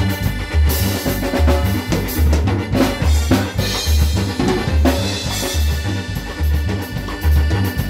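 A band playing live, led by a drum kit: drums and several cymbal crashes over a steady low bass beat.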